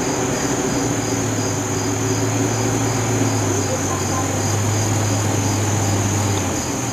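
Insects chirping steadily, one high chirp repeating about three times a second over a constant high buzz, typical of crickets, with a low steady hum underneath that stops near the end.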